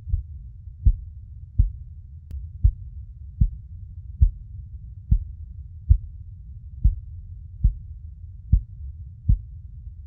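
Recorded heartbeat, low soft thumps about one every 0.8 seconds over a steady low rumble, like the heartbeat heard from inside the womb.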